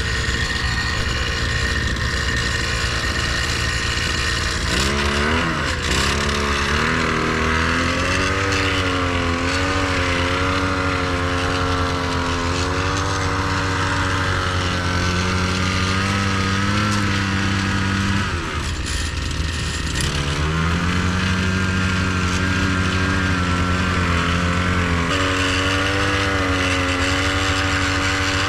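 Small gasoline mini tiller's engine running, idling at first and then revved up about five seconds in. Its pitch wavers as the tines work through the soil, dips briefly about two-thirds of the way in, then picks up again.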